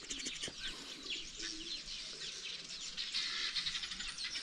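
Many small birds chirping together, a dense chorus of short, high, quick downward chirps.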